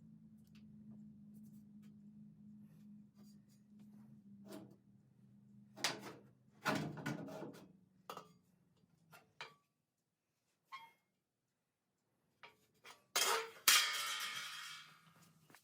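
Sheet-metal panels knocking and clanking as they are handled and fitted, with a louder, ringing metal clatter near the end. A low steady hum stops about six seconds in.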